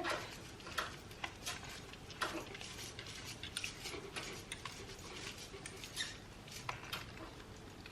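Faint, irregular small clicks and ticks of a plastic tripod stand being screwed by hand into a JLab Talk Pro USB microphone.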